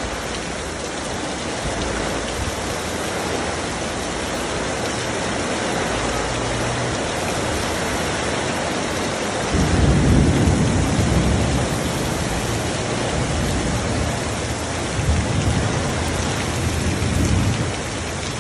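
Heavy rain pouring down steadily, streaming off a roof edge and drumming on the ground and a parked car. A louder low rumble swells about ten seconds in and again, weaker, near the end.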